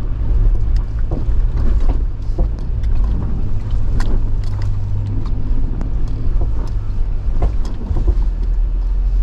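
Jeep Wrangler engine running steadily at low revs while crawling a rocky off-road trail, with scattered knocks and clunks from the body and suspension.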